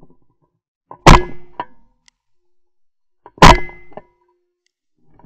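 Two shotgun shots, about a second in and again about two and a half seconds later, each a sharp crack with a short ringing tail.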